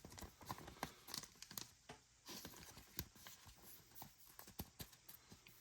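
Faint, irregular clicks and light rustling of trading cards being handled and shuffled by hand.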